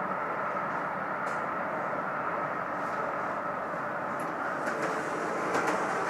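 Train passing close by with steady wheel-on-rail running noise and a few sharp clicks in the last couple of seconds, cut off abruptly at the end.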